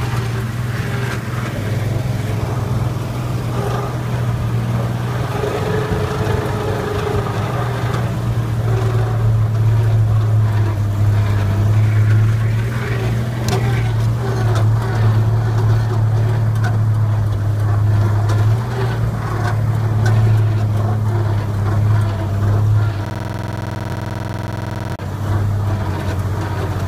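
1971 International Harvester Scout II's AMC 232 inline-six engine running steadily while the truck is driven, heard from inside the cab.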